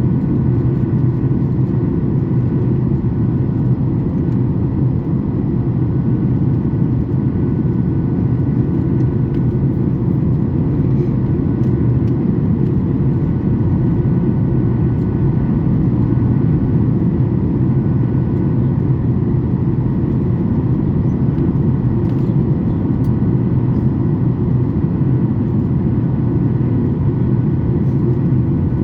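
Steady in-flight cabin roar of a Boeing 737 MAX 8, heard at a window seat over the wing: deep airflow and CFM LEAP-1B engine noise, with a few faint steady tones above it.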